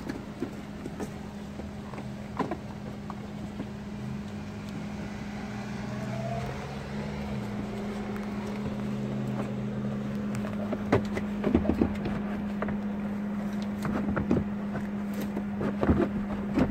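A steady low engine hum of a running motor vehicle, with its pitch shifting slightly in the middle. In the second half there are light knocks and clatter as the dashboard's plastic HVAC housing is handled and pushed into place.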